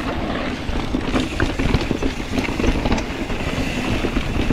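Mountain bike rolling fast over a rough dirt trail: steady tyre noise with frequent rattles and clatter from the bike.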